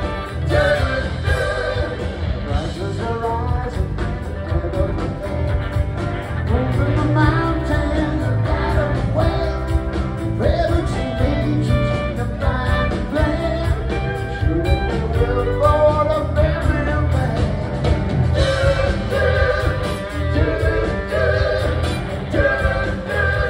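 Live rock band playing a song: sung lead vocals over electric guitar, bass, drums and keyboards.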